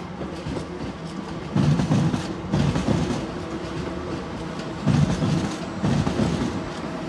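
A train passing at moderate speed, its wheels clacking over rail joints in pairs of beats about a second apart, repeating every three seconds or so over a steady rumble.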